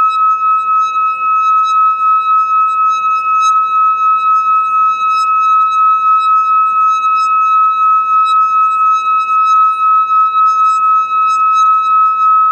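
A singing bowl held ringing in one steady high tone, its loudness wavering about three times a second, over a faint even hiss.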